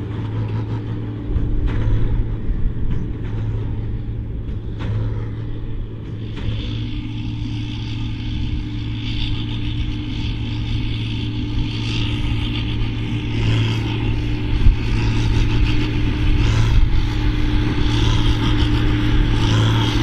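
John Deere 4955 tractor's six-cylinder diesel engine running steadily under load while pulling a Krone BigPack large square baler as it presses straw bales. A higher hissing rush joins the engine note about six seconds in.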